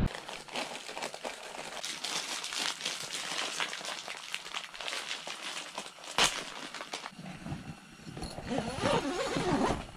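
Steady crinkly rustling, with one sharp knock about six seconds in.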